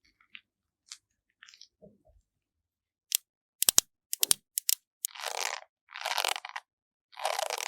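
Makeup tools and packaging handled against a green melon's rind: a run of sharp clicks about three seconds in, then three scratchy strokes, each under a second long.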